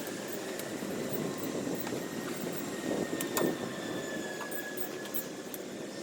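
Nylon tent fabric rustling while a tent is being put up, with a few clicks and high squeaks from the poles being worked into place.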